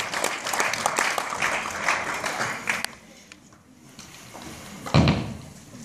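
An audience's applause dying away over about three seconds, then a single loud thud about five seconds in.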